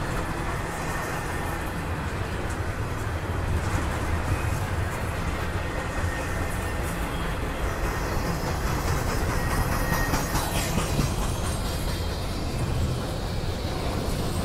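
Double-stack intermodal freight cars rolling past: a steady rumble of steel wheels on rail, with a few clanks about ten seconds in.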